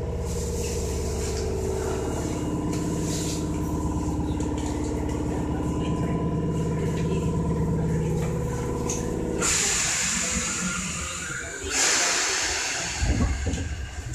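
Tokyu 8590 series commuter train standing with its doors closed, its onboard equipment giving a steady hum. About nine and a half seconds in, a loud hiss of released air runs for about two seconds, followed by a second hiss and a few low thumps near the end as the brakes release for departure.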